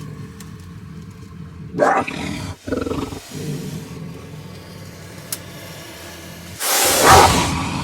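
Monster sound effect: a low, continuous growl broken by two short snarling cries about two and three seconds in, then a loud, long roar near the end.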